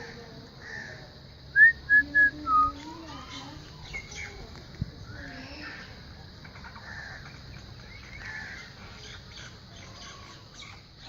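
Four short, loud, high whistled notes in quick succession about two seconds in, followed by faint scattered chirps over a steady high hiss.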